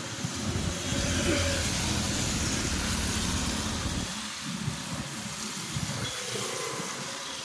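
Heavy rain and tyres hissing steadily on a wet road as traffic passes. A low rumble runs through the first half and fades about four seconds in.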